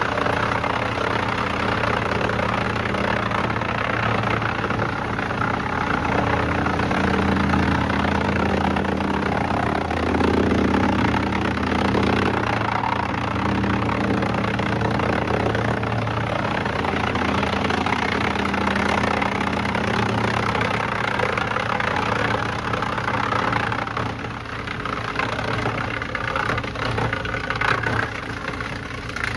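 A large engine running steadily under a dense mechanical noise.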